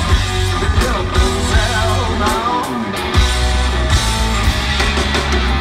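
A hard-rock band playing live: electric guitars, bass and drums under a male lead singer, his voice sliding down in pitch. The bass and kick drop out for a moment about halfway through, then come back in.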